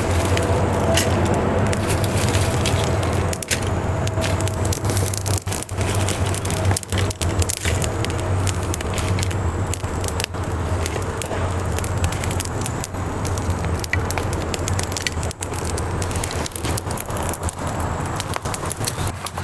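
Campfire crackling, with frequent sharp pops and snaps over a steady low rumble.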